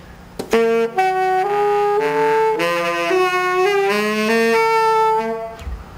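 Dented saxophone played: a run of held notes lasting about five seconds, some of them bending in pitch. The instrument was badly dented when it was dropped, and it does not sound properly.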